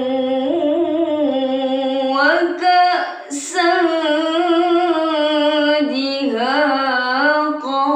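A young woman's voice chanting Qur'anic recitation (tilawah), drawing out long, ornamented notes that glide up and down. There is a short break with a hissing consonant about three seconds in before the chant resumes.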